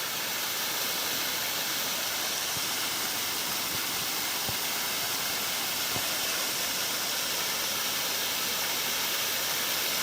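Steady rushing of a small creek waterfall.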